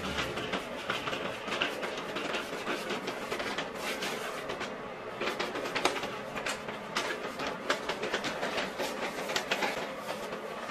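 A pleated paper window shade being pushed up by hand, its folds crinkling and rustling with irregular crackles and clicks.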